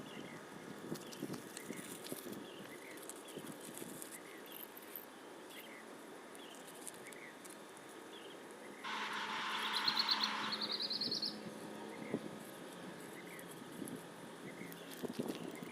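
Birds calling by a rural canal: faint short chirps repeating about once a second, then a harsh buzzing call about nine seconds in that runs into a quick rising trill.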